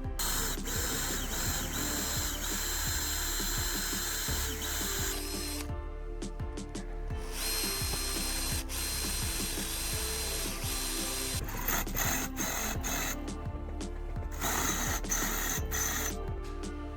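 A handheld power tool running in three runs of a few seconds each, with a steady high whine, over background music. Short clicks and knocks fall in the gaps between runs.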